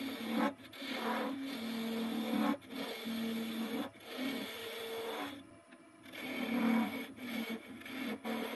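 A hollowing tool cuts inside a stone pine vase spinning on a wood lathe. It makes a rough, rasping scrape of the cut over a low hum, and the sound breaks off briefly several times as the tool is eased off. The longest pause comes about halfway through.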